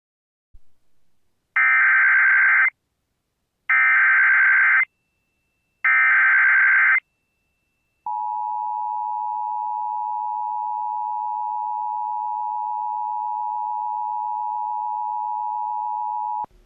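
Emergency Alert System header: three short bursts of digital data screech, about a second each with gaps of about a second between them, followed by the steady two-tone EAS attention signal for about eight seconds, which cuts off sharply. This is the coded start of a new emergency alert broadcast.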